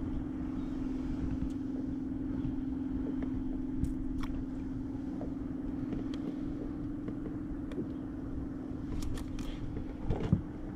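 A steady motor hum, with scattered light clicks and a sharp knock near the end.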